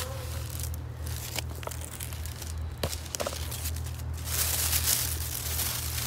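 Leaves and stems rustling and crinkling with a few sharp snaps, from hands picking turkey berries off the bush; the crackling grows louder about four and a half seconds in.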